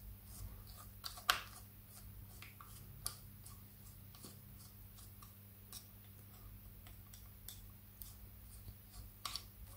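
Faint scattered metallic clicks and light scrapes of a screwdriver working in the slotted end of the clutch pull rod of a Triumph Trident T160 engine, as the rod is unscrewed to draw its nut up against the clutch operating mechanism. One sharper click comes about a second in and a short cluster near the end, over a steady low hum.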